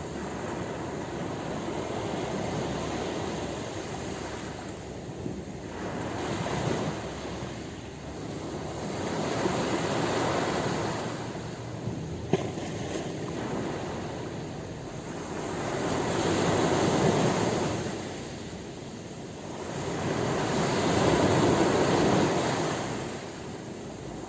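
Ocean waves breaking and washing on a shore, the surf swelling and falling back every few seconds, with several stronger waves.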